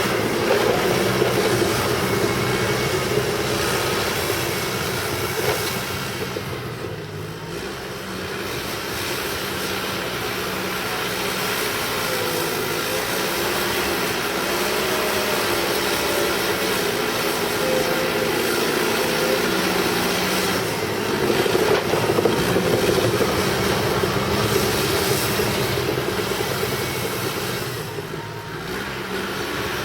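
Cat D5K crawler dozer working in mud: its diesel engine runs steadily under load while the steel tracks clatter. The engine sound dips briefly twice, about seven seconds in and near the end.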